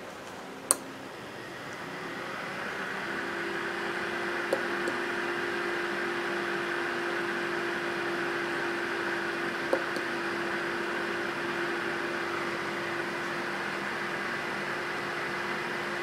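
A sharp click, then the 12 V cooling fan on the Peltier module's heatsink spins up over a couple of seconds and runs steadily, with an even hum and rush of air. Two small clicks come through later.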